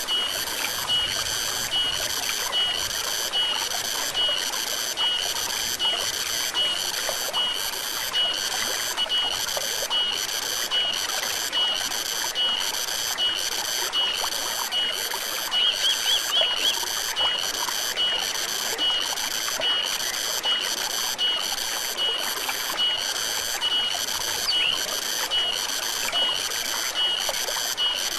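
Stream water running steadily, with a small animal's high-pitched call repeating about every three-quarters of a second throughout. A brief rapid trill comes in about halfway through.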